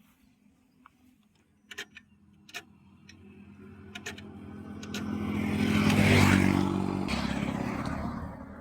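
A few light clicks, then a motor vehicle's engine that swells to its loudest about six seconds in and then fades.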